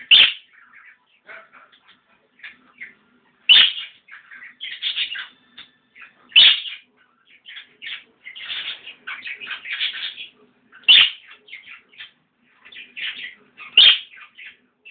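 Pet parrot sneezing five times, each sneeze sharp and short, about every three seconds, with soft chirps and chatter in between.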